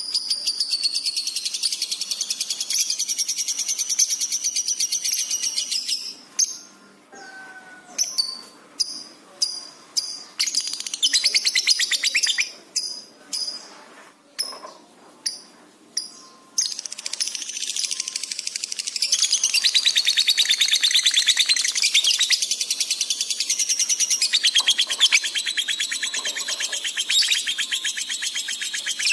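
Lovebird singing in full chatter: long runs of rapid, high, trilling notes. About six seconds in, these break into separate short chirps for about ten seconds before the fast continuous chatter resumes.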